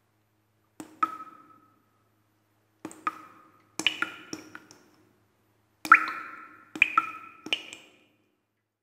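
A dress shoe tapping on a hard restroom floor: about a dozen sharp taps in quick pairs and short runs, each with a brief ringing note.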